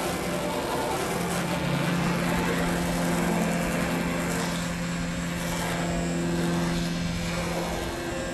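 An engine running steadily: a constant hum that comes in about a second in, over a steady rushing noise.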